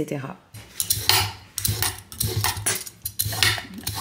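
Courgettes and carrots being cut up by hand in the kitchen: a run of scraping, knocking strokes, roughly two a second.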